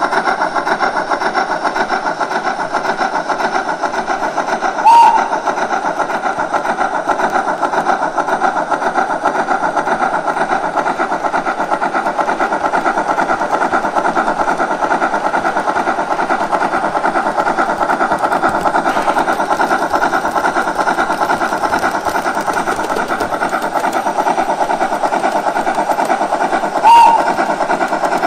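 Steam-locomotive sound from the ESU LokSound 5 XL sound decoder in a 1:32 gauge 1 class 52 model, played through its speaker: steady chuffing while the model runs, with two short whistle toots, about five seconds in and near the end.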